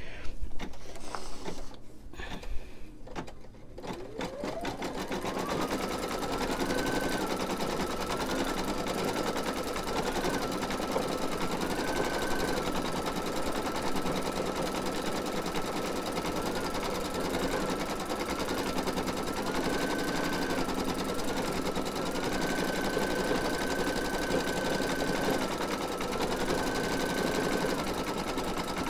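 Computerized embroidery machine stitching free-standing lace. After a few clicks at the start, its motor whine rises as it speeds up about four seconds in, then runs with a rapid, even stitching rhythm, the pitch stepping up and down a little as the stitching speed changes.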